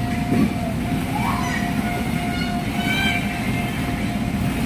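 Steady low rumble of a busy indoor play centre, with a constant faint tone and a few brief children's calls.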